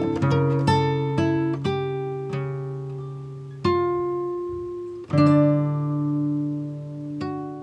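Background music: acoustic guitar picking quick notes, then three single chords left to ring out and fade.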